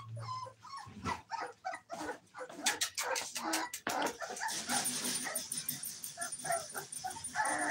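A litter of American bully puppies whimpering and yipping in many short, overlapping high calls, with a denser rustling scuffle in the second half.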